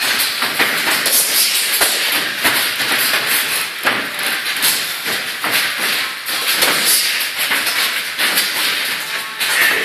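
Boxing sparring: feet shuffling and scuffing on the ring canvas and padded gloves knocking at irregular moments, over a steady hiss.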